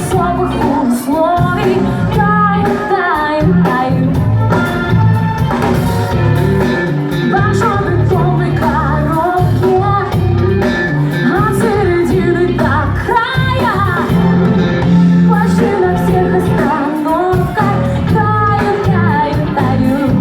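A live band playing a pop-rock song, with a singer's voice carrying the melody over the band.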